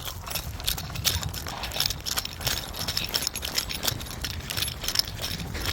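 Rattling and clinking of carried shooting gear, many small irregular metallic clicks, as kit and magazines jostle on the shooter's body while moving.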